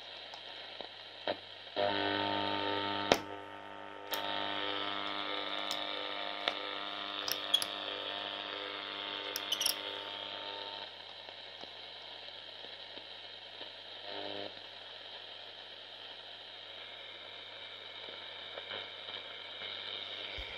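Grundig Satellit 6000 portable radio receiver hissing with static while being tuned, over a steady low hum. About two seconds in a station comes through with pitched, evenly pulsing audio, then drops back to static about halfway through. Scattered crackles and clicks sound along the way.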